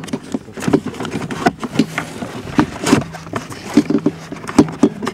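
Irregular clicks, knocks and scraping of hands working parts into a car's plastic cabin air filter housing.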